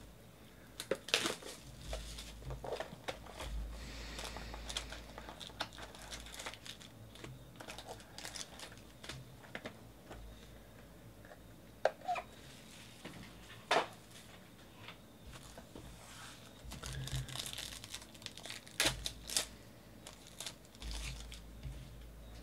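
Plastic shrink-wrap on sealed trading-card boxes being torn off and crumpled in the hands, with sharp taps and clicks as the boxes and card packs are handled.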